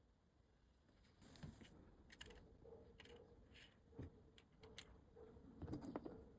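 Faint scattered clicks and light taps, more of them near the end, over a faint broken hum.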